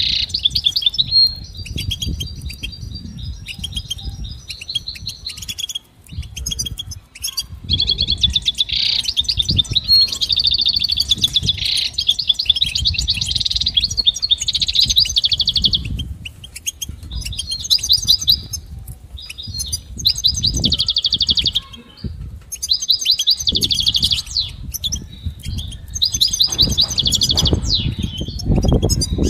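European goldfinch singing: fast, twittering trilled phrases broken by short pauses, over a low rumble.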